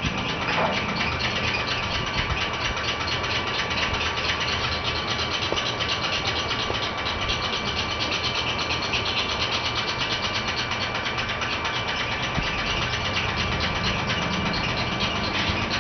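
Steady mechanical hum and whir of a running motor, unchanging throughout, with a faint high steady whine over it.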